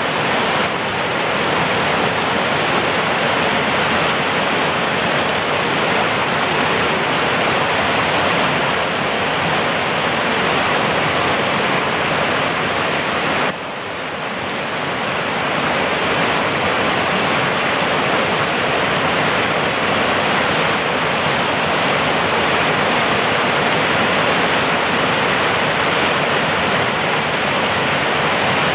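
Fast-flowing creek rushing over rocks and small cascades: a steady, full rush of water. About halfway through it drops suddenly to a slightly quieter rush from a small waterfall, then swells back over a couple of seconds.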